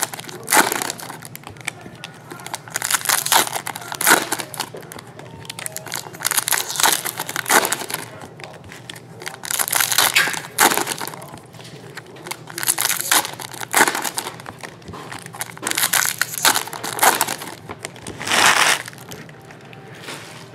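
Foil wrappers of Panini Prizm football card packs being torn open and crumpled by hand, in repeated crinkling bursts.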